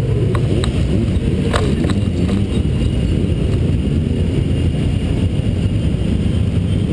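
Motorcycle engines revving, their pitch rising and falling again and again over a heavy, steady low rumble, with a few sharp clicks in the first two seconds.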